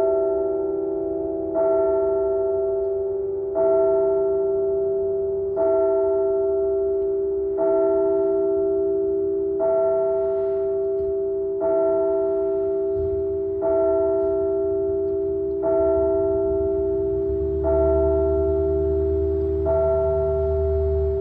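A single tower clock bell striking the hour of eleven: eleven strokes about two seconds apart, each ringing on into the next.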